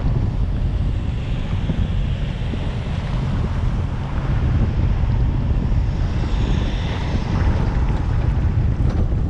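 Wind buffeting the microphone: a heavy, steady low rumble with hiss above it, which brightens about six seconds in.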